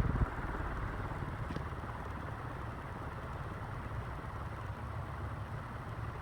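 36-inch Crompton Greaves industrial ceiling fan running on high speed: a steady rush of air from its blades, with a low rumble underneath.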